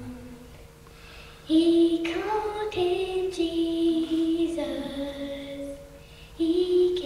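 A young girl singing solo into a handheld microphone, slow with long held notes. The first phrase comes in about a second and a half in, breaks off near six seconds, and the next phrase starts soon after.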